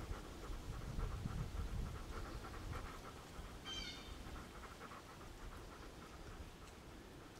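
A dog panting, faint and rhythmic. There is a low rumble on the microphone over the first second or two, and a brief high squeak near the middle.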